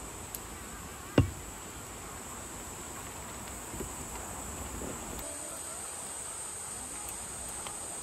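Insects droning steadily in a forest, a high-pitched whine that grows louder about five seconds in. A single sharp knock sounds about a second in.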